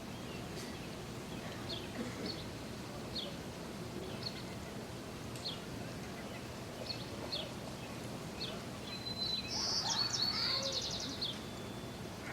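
Small birds chirping: short high chirps repeated every half second or so, then a louder, rapid chattering trill about three quarters of the way through, over a steady outdoor hiss.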